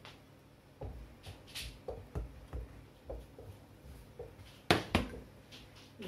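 Cookware being handled at a saucepan: a run of light knocks and scrapes of a metal jug and wooden spoon against the pot, then two sharp clanks in quick succession near the end.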